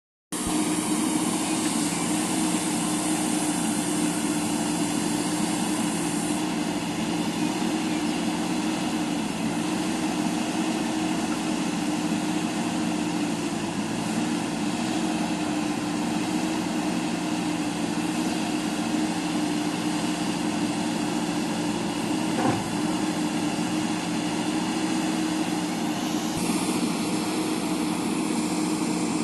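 JCB backhoe loader's diesel engine running steadily, with a single brief knock about 22 seconds in.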